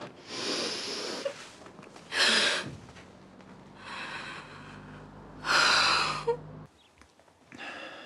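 A woman breathing heavily, four loud, breathy breaths, each lasting about half a second to a second.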